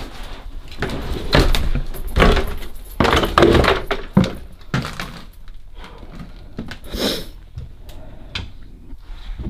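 A run of irregular knocks and thuds with some rustling, dense for the first five seconds, then fewer and fainter.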